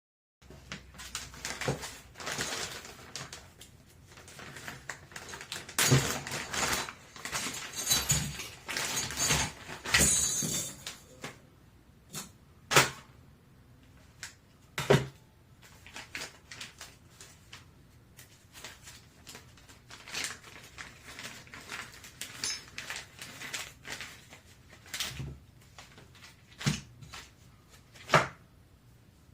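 AR-15 parts being handled and fitted together: about ten seconds of busy rattling, scraping and clicking of metal, then scattered single sharp clicks and knocks.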